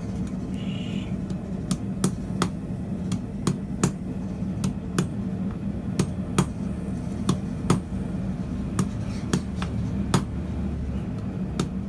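Hand hammer forging a red-hot square steel bar held in tongs on the anvil: a string of sharp ringing blows at an uneven pace of about two a second, starting a couple of seconds in. Under them runs a steady low hum, the lit gas forge.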